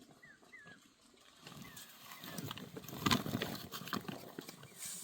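Livestock moving and calling: a rough, noisy stretch of animal sounds that is loudest about three seconds in, with a few faint high chirps before it.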